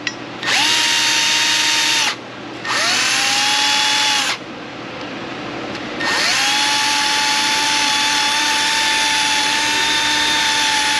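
Cordless drill spinning a wire wheel brush against a rusty brake caliper bracket and slide pin, scrubbing off corrosion. The motor whines in two short runs of about a second and a half each, then a long steady run from about six seconds in.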